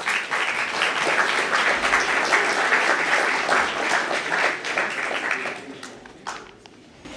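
Audience applauding, a dense patter of many hands clapping that fades out after about five or six seconds, with a last stray clap near the end.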